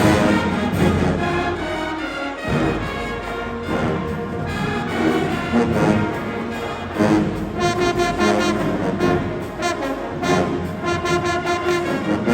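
High school marching band playing, its brass section holding loud sustained chords.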